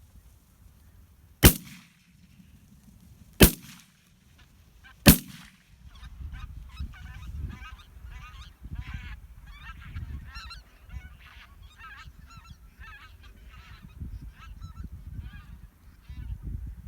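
Three shotgun shots, about two seconds and then a second and a half apart, followed by a flock of Canada geese honking continuously, with wind rumbling on the microphone.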